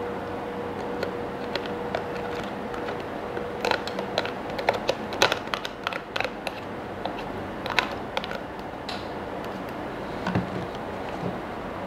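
Tableware being handled: a run of light clicks and taps from a spoon and plastic bowls, busiest in the middle, with a couple of soft knocks near the end.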